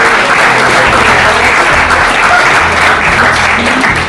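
Loud, steady applause from an audience.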